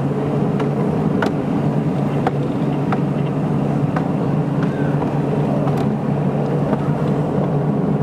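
Train running slowly along the line, heard from an open carriage: a steady engine drone with scattered sharp clicks from the wheels on the track.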